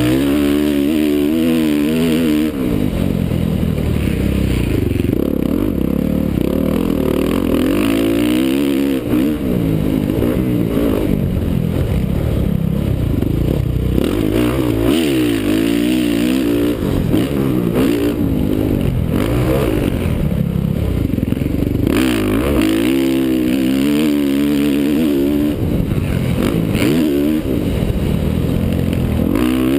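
Honda CRF450R's single-cylinder four-stroke engine being ridden hard on a dirt motocross track, revving up and down over and over, its pitch rising and falling every few seconds.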